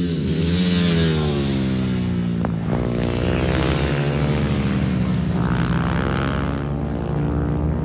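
Small racing minibike engines revving on track, their pitch falling and rising repeatedly as the bikes brake and accelerate. At times a second bike can be heard over the first.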